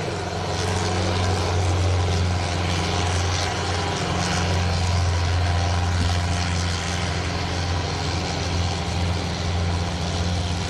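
Diesel tractor engines running with a steady low drone as tractors pull harrows through loose dirt.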